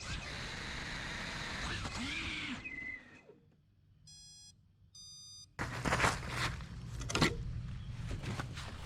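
Small FPV racing quadcopter's motors whining and shifting in pitch, then cutting out suddenly about three seconds in as the quad bumps into trees. Two short electronic beeps follow, then rustling and knocks.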